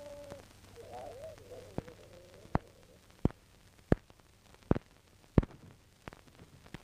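Old cartoon soundtrack: a short wavering voice-like call, then a run of sharp, evenly spaced clicks, about one every 0.7 seconds, over a faint hiss. The clicks are the loudest sound and fade near the end.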